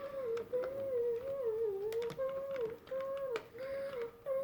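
A voice humming a wavering tune in short held notes, over light scattered clicks and taps of small parts being handled while a toy is taken apart.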